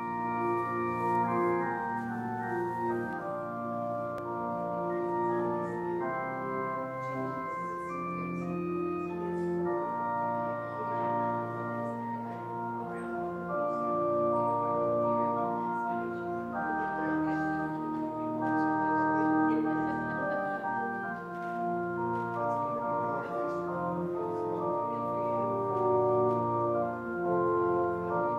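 Organ music: slow, sustained chords that change every second or two, as in a service prelude.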